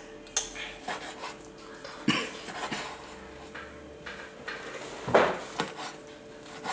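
Meat cleaver chopping through cooked chicken breast onto a wooden chopping board: several sharp, irregularly spaced knocks of the blade on the wood.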